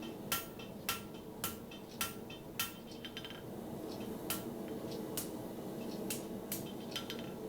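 Blacksmith's hand hammer striking a steel bar on the anvil edge in strong half-face blows, forging the tong jaw and boss: a run of sharp clanks with a brief metallic ring, about two a second for the first few seconds, then fewer and further apart.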